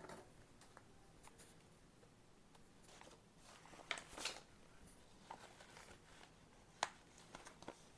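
Faint handling of paper pages: a few brief rustles and a single sharp light click, over near silence.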